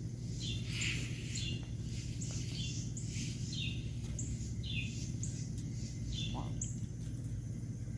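A bird calling outdoors with short repeated chirps, about one a second, over a steady low hum.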